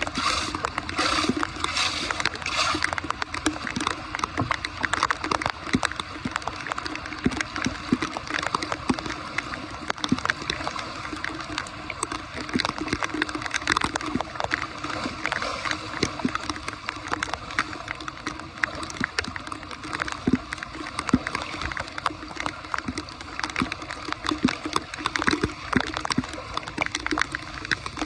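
Floodwater sloshing and gurgling, with many small irregular splashes, as a blockage holding water on a flooded road is cleared.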